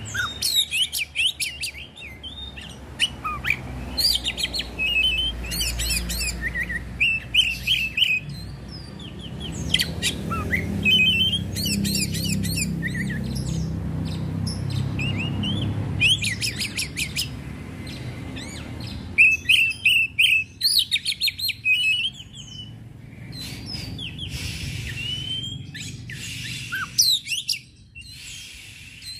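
Caged Oriental magpie-robin (kacer) in full song: a varied run of quick whistled phrases, rapid trills and chattering bursts, broken by short pauses. A low rumble runs underneath for much of it.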